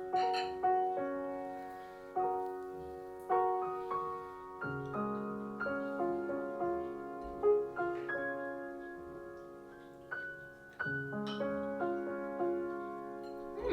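Piano music: slow notes and chords, each struck and then fading.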